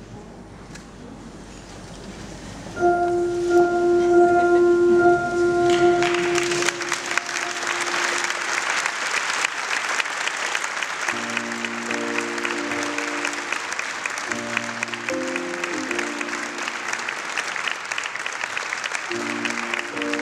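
Audience applauding, starting about six seconds in and continuing steadily, over music. The music opens with one long held note, then short repeated chords come in from about eleven seconds in.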